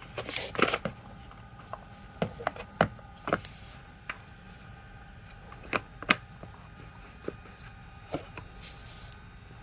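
Irregular clicks and light knocks of hard parts being handled, bunched in the first few seconds and sparser later, over a faint steady hum.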